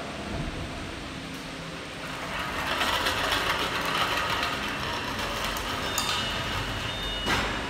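A wheeled steel stand rolls on its casters across a concrete floor, rattling and clattering. It grows louder from about two seconds in, and there is a sharp knock near the end.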